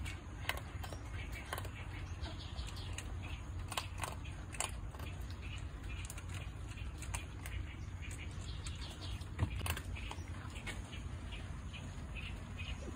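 Steady low background hum with scattered light clicks and taps, and many faint, short high chirps.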